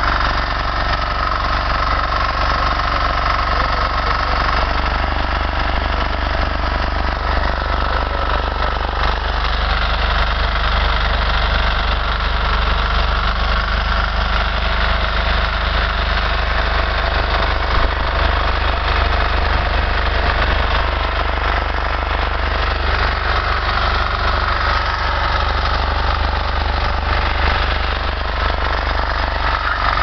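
Small engine of a KisanKraft mini rotary power tiller running steadily under load, driving a potato-harvester attachment through the soil.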